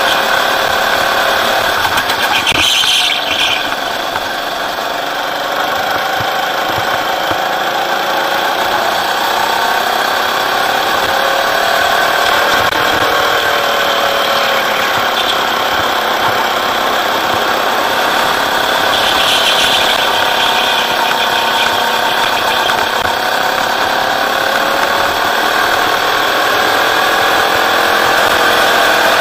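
Rental go-kart engine running hard on track, its pitch rising and falling with the throttle through the corners and straights.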